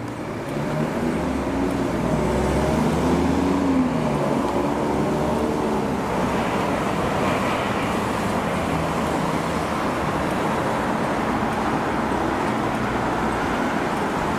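Passing motor traffic: a steady rumble of rolling vehicles, with an engine's pitch rising and falling over the first few seconds.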